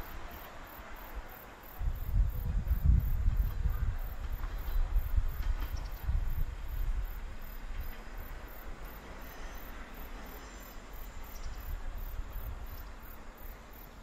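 Diesel railcar on the Nishikigawa Seiryu Line heard from the distance, a low rumble that swells twice early on and then slowly fades. Insects chirp steadily in high, even pulses about three a second.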